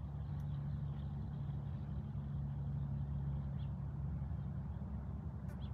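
A steady low mechanical hum, with a faint click about five and a half seconds in.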